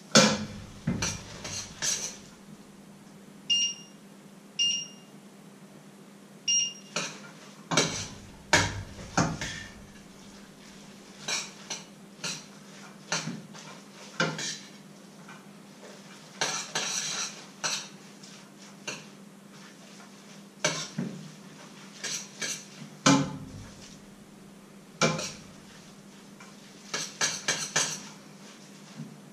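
A metal utensil clanking and scraping against pots and pans on a stove, in irregular clatters. There are three short electronic beeps a few seconds in, over a faint steady hum.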